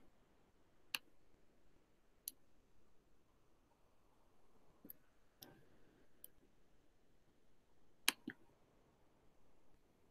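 Scattered single clicks of a computer mouse over near silence, about eight in all, unevenly spaced. The loudest is a close pair about two-thirds of the way through.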